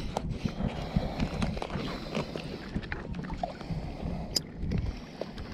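Shallow bay water lapping and sloshing around a wading angler, with wind on the microphone and a few light knocks and clicks from handling a caught fish.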